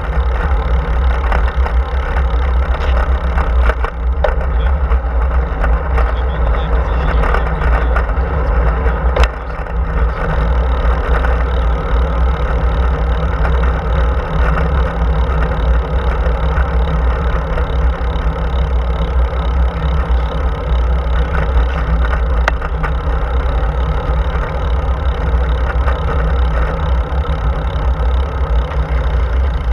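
Steady wind rush and low rumble on the microphone of a camera riding on a road bike, mixed with tyre noise on asphalt. A few light clicks come between about four and ten seconds in.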